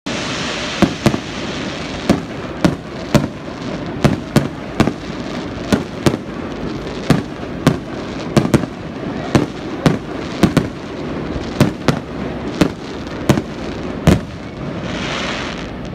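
Fireworks display: a rapid run of sharp bangs from aerial shells, about two a second, over a steady hiss. The bangs stop near the end, giving way to a brief loud hiss.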